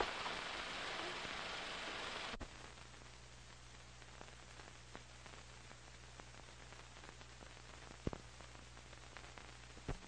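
Faint recording hiss with a steady low hum, the noise floor of an old soundtrack; the hiss drops sharply about two and a half seconds in, and a few faint clicks come near the end.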